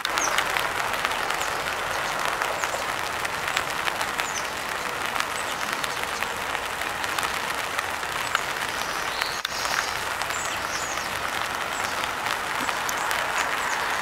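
Steady rain falling, with many small drops tapping on an open umbrella overhead.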